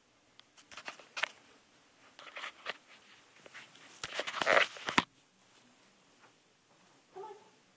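Scuffling and thuds of movement on carpeted stairs: scattered rustles and knocks, then a loud scuffle about four seconds in that ends in a sharp thump. A short voiced sound follows near the end.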